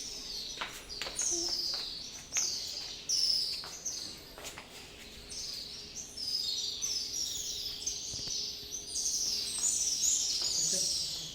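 Many birds chirping together in a dense chorus of short, high chirps, each falling in pitch. A few sharp clicks come in the first few seconds.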